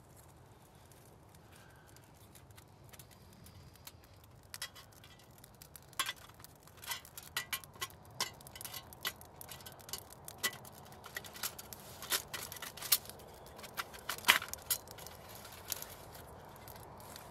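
Sharp, irregular metallic clicks and clinks from a folding metal wood-burning camp stove as its panels are fitted onto the base tray and handled. The loudest click comes about 14 seconds in.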